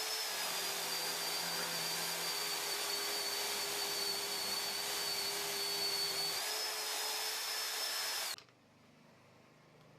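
Electric drill driving a homemade cylindrical drum sander, running with a steady high whine. Its pitch sags slightly, climbs back about six and a half seconds in, and the motor cuts off suddenly a little past eight seconds.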